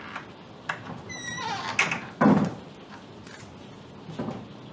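A wooden door being handled: a few sharp clicks, a short high squeak about a second in, a heavy thud a little after two seconds, and a softer knock near the end.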